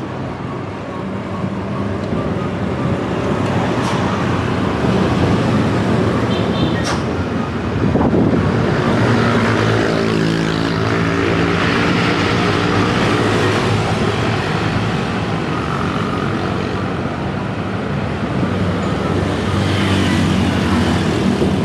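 Road traffic noise: motor vehicles running, with one engine passing close by around the middle.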